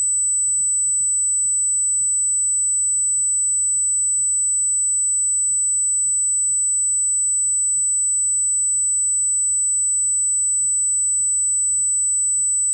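A steady high-pitched electronic whine held at one pitch, with a faint low hum underneath.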